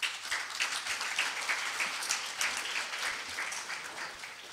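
Audience applauding: a dense crowd of many hands clapping that starts suddenly and begins to die away near the end.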